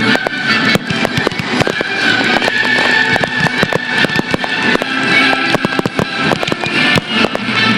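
Fireworks display: many shells bursting and crackling in quick succession, over music.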